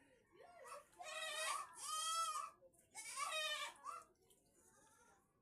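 Farm animal calling: a series of pitched, wavering cries, three long ones in a row about a second apart with shorter, fainter ones around them.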